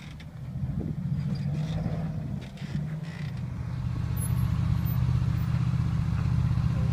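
Off-road vehicle engine running steadily at low revs while crawling over rock ledges, getting louder about halfway through.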